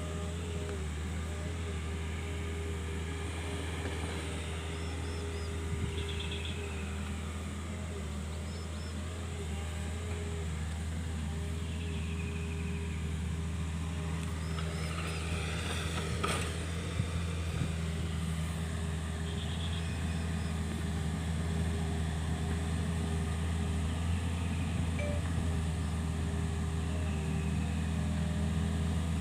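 Kobelco SK 50 P mini excavator's diesel engine running steadily, with a brief crackle and a sharp knock about sixteen seconds in.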